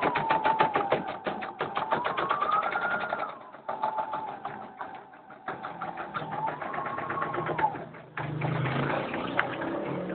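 CNY Autostars E900 portable computerized embroidery machine stitching a design, its needle running in rapid, even strokes under a whine that rises and falls in pitch. The stitching noise drops back about three seconds in and picks up again a couple of seconds later.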